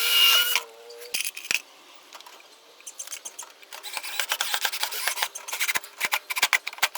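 Power drill driving a screw into a wooden door threshold, its motor whine stopping about a second in, followed by scattered clicks and then a quick run of clicks and rattles.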